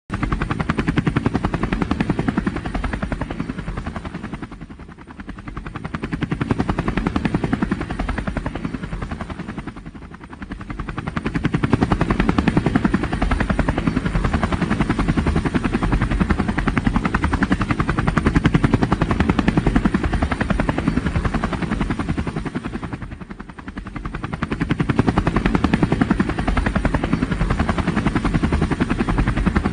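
Helicopter running, its rotor blades chopping in a fast, even beat. The sound dips briefly and comes back up three times, about five, ten and twenty-three seconds in.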